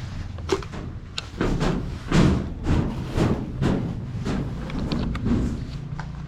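Irregular knocks and thuds, several in quick succession, the loudest about two seconds in.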